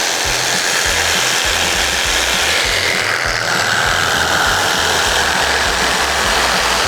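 Electric saw running steadily, cutting through a seat's foam cushion. Background music with a steady beat plays underneath.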